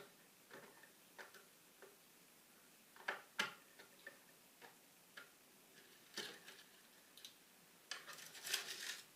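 Faint, scattered small clicks and taps of hands disconnecting wires at screw terminals on the electronics panel, the sharpest about three seconds in and a quick run of them near the end.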